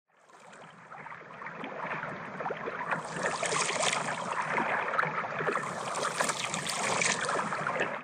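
Moving water with a dense crackle of small splashes and bubbles, fading in from silence over the first two seconds.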